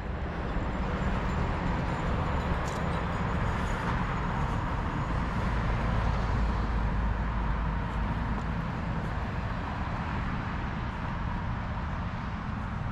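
Road traffic passing on a town street: a steady low rumble of vehicles that swells slightly about halfway through.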